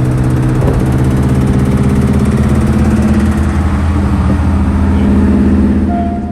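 Car engine running steadily with a deep, even note and slight swells in speed. It cuts off abruptly at the very end as a chiming music sting comes in.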